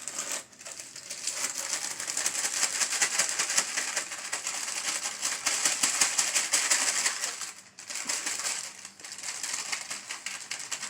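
Crinkly rustling and crackling of a brownie mix bag being handled and opened, with the dry mix being emptied out. It runs on densely, briefly dropping away about three quarters of the way through.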